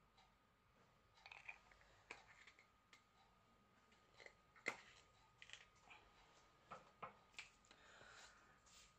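Near silence broken by scattered faint clicks and light taps: small plastic powder pots being handled and set down. The clearest click comes just under halfway through.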